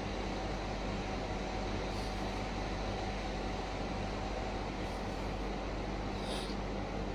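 Steady background hiss with a low, even electrical hum and no distinct event.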